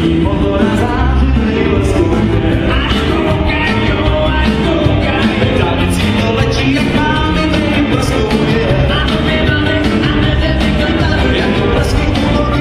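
A dance band playing upbeat music with a singer and a steady beat, for couples dancing.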